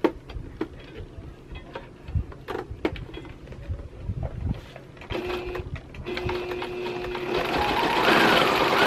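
Singer Quantum XL 1000 computerized sewing machine test-sewing a straight stitch on fabric scraps: a few scattered clicks first, then the motor and needle start about five seconds in, stop briefly, and run steadily, getting louder toward the end.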